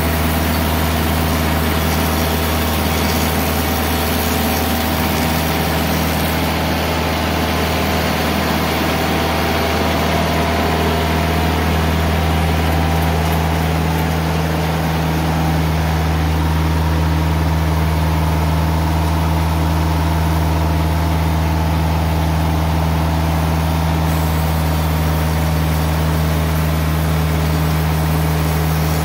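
TimberKing 2020 portable bandsaw mill's engine running at a steady speed, with no change in pitch.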